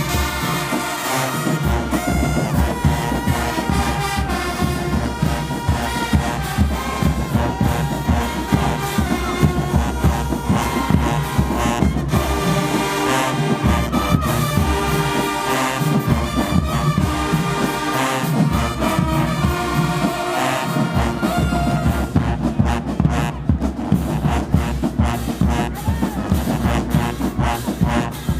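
Marching band playing loudly: the brass section holds and moves through sustained chords over a driving drumline beat.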